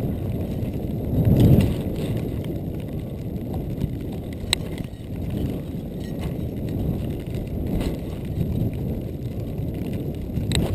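Wind rumbling on the camera microphone of a skier running downhill through deep, light powder, with a louder gust about a second and a half in and a few sharp clicks.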